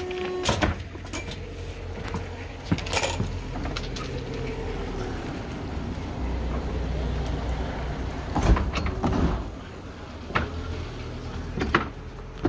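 Low steady engine hum with scattered knocks and bumps, the loudest about two-thirds of the way in.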